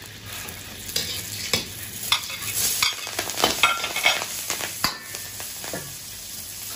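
Sichuan peppercorns, star anise and chopped scallion sizzling in hot oil in an iron wok. A metal ladle stirs them, scraping and clinking against the wok again and again.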